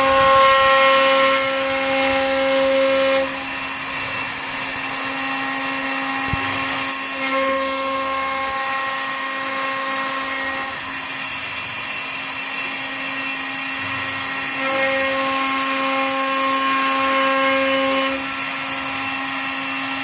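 CNC wood turning lathe with a rotary carving spindle running, a steady machine hum with a higher whine that grows louder three times for about three seconds each.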